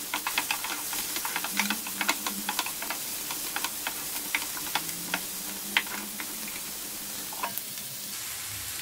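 Chopped vegetables and spices frying in oil in a non-stick pan, sizzling steadily, while a wooden spatula stirs them with quick scrapes and taps against the pan. The stirring stops near the end, leaving only the sizzle.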